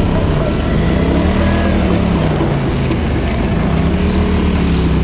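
ATV engine running under throttle, its note rising and falling as the revs change.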